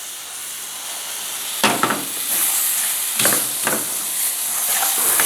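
Melting brown sugar with onion, ginger and turmeric sizzling in a pot over the heat, the hiss growing louder. A spoon stirring knocks and scrapes against the pot a few times.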